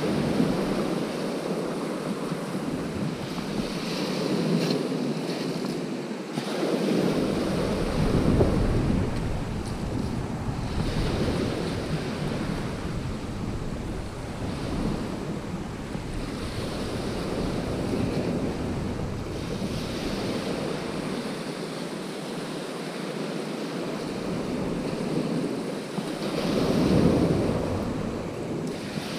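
Sea waves breaking and washing up a shingle beach, the surf rising and falling every few seconds, with wind buffeting the microphone.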